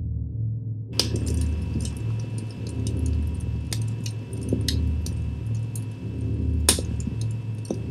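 Small wood campfire crackling with scattered sharp pops, starting suddenly about a second in, with one louder pop near the end. Under it runs a low pulsing musical drone.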